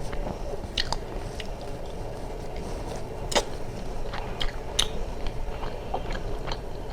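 A person chewing and biting food close to the microphone, with scattered short, sharp clicks and crunches.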